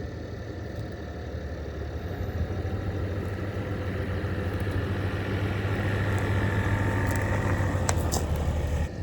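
Sprinter van's engine running, a steady low drone that grows a little louder over the second half, with a couple of faint clicks near the end.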